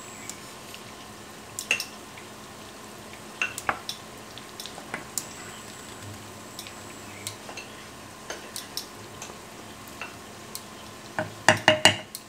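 Maple wooden spoon stirring vegetables in a stainless steel saucepan over a faint, steady sizzle, with scattered light taps of the spoon against the pan and a quick run of louder clacks near the end.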